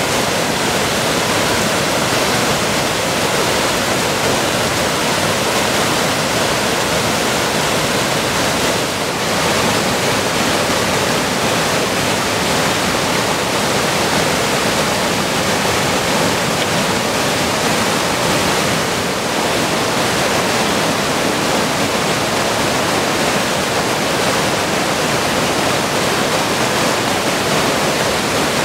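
Mountain creek water rushing over low cascades and fallen logs: a steady, even rush of whitewater.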